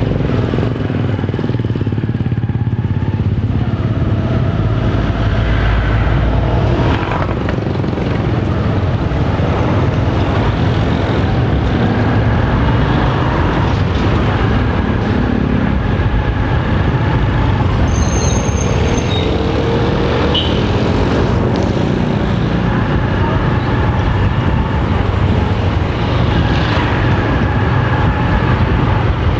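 Honda motorcycle engine running steadily while riding through town traffic, with road and wind noise making a continuous heavy rumble.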